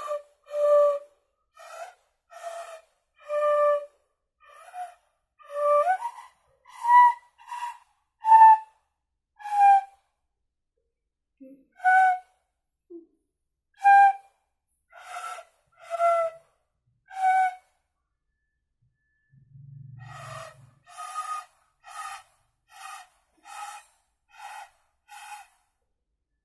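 Dizi (Chinese bamboo flute) played by a beginner: short, separate notes with pauses between them, the pitch stepping up and down from note to note, with audible breath noise. Toward the end, quicker notes about two a second.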